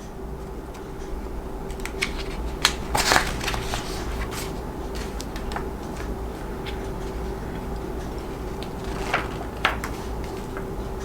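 Paper and packaging being handled: rustling and crinkling with scattered light clicks, the loudest about three seconds in and again near nine seconds, over a steady low hum.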